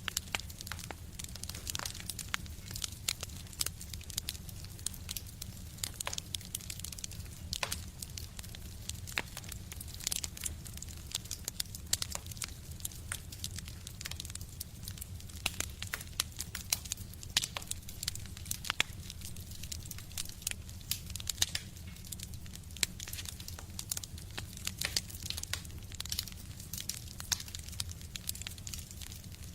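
Wood fire crackling in a stove: a continuous, irregular stream of sharp pops and snaps over a steady low rumble.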